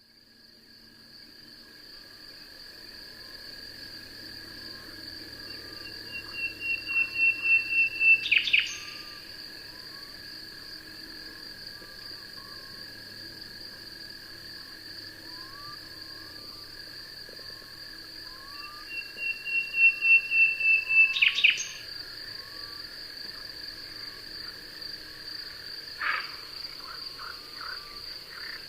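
Night chorus of crickets trilling steadily, with small scattered chirps. Twice a loud, rapidly pulsed animal call builds up for about two seconds and stops.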